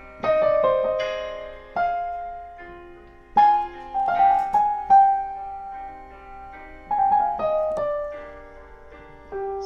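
Digital keyboard on a piano sound playing slow chords in C minor, a new chord about every one and a half to two seconds, with a simple improvised melody of single notes over them. The chords come from a phone recording being played back while the melody is played live.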